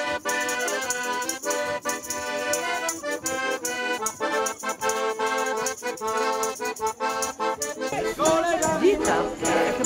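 Instrumental folk-style music led by accordion over a steady shaken-percussion beat. About 8 s in it changes to a louder mix of voices over music.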